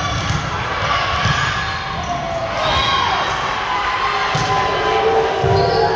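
A basketball game in a gym: the ball bouncing with repeated low thumps, high sliding squeaks, and crowd voices echoing in a large hall.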